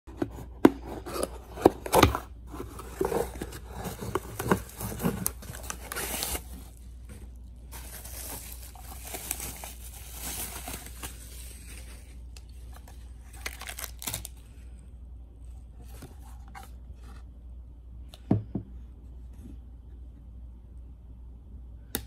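A cardboard box opened by hand, with scraping, tearing and crinkling and a run of sharp clicks and knocks, then lighter handling of a clear acrylic holder with a single louder knock near the end.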